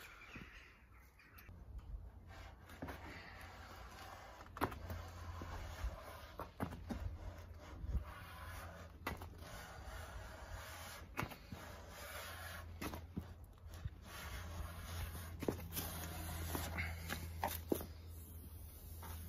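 Stanley Sweetheart hand plane cutting a chamfer along the edge of a solid ash tabletop: repeated short strokes of the blade shaving the wood, roughly one a second. A low steady hum lies underneath.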